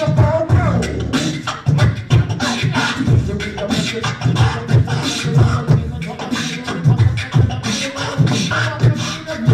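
Group beatbox jam: several beatboxers on microphones layer bass and percussive mouth sounds into one continuous rhythm.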